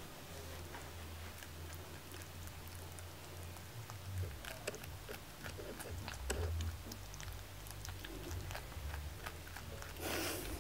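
Domestic rabbit biting and chewing a nectarine held in a hand: many quick, small wet clicks of its teeth on the fruit, coming thick from about four seconds in. A short rustle near the end.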